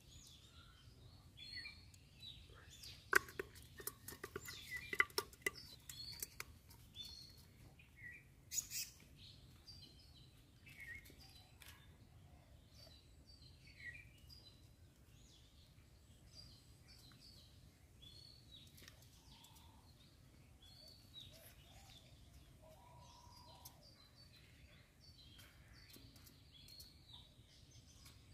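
Small birds chirping and calling on and off throughout. A flurry of sharp clicks and knocks comes a few seconds in.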